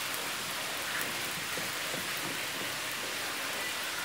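Steady hiss of butter sizzling in a very hot non-stick frying pan, with a few faint taps of a ladle in pancake batter.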